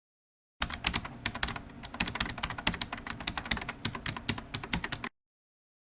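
Computer keyboard typing: a fast, uneven run of key clicks lasting about four and a half seconds, starting and stopping abruptly, as a sound effect with dead silence around it.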